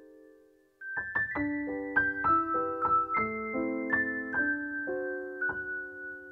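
Soft background piano music: a held chord fades away, then after a short pause a gentle run of single notes begins about a second in.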